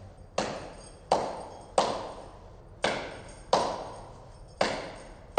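Sharp percussive strikes in an uneven, repeating dance rhythm: seven in all, each with a ringing tail that fades over most of a second.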